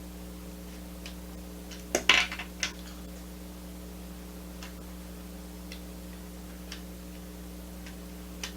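A short clatter of hard plastic LEGO parts clicking about two seconds in, followed by a few faint single clicks as the built model is handled, over a steady electrical hum.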